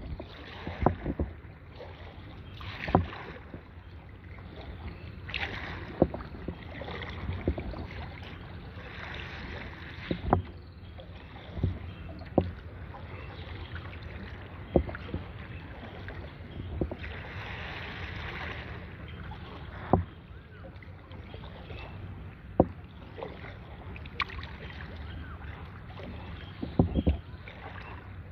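A kayak being paddled on calm water: water splashing and dripping off the paddle, with sharp knocks every second or few as the paddle strikes the kayak.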